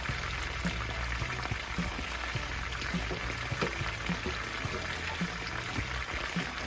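Water running and splashing down the rocks of a pondless waterfall creek under test flow, a steady pouring sound. Background music with a steady beat, about two pulses a second, runs underneath.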